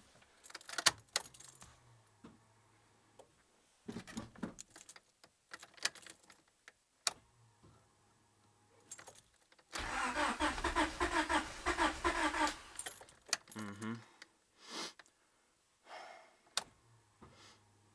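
Car keys jangling and clicking in the ignition of a 1995 Honda Civic with a swapped-in H22A engine, then, about ten seconds in, the starter cranking the engine for about two and a half seconds on a cold first start of the day.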